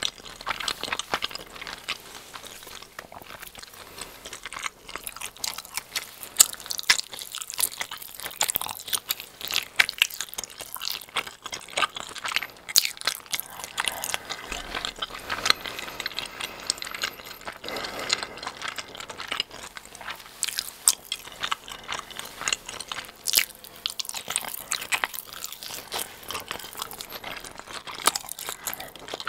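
Close-miked chewing of a giant cheese ball: bread crust crunching and stretchy melted cheese being chewed, with many irregular sharp mouth clicks and smacks.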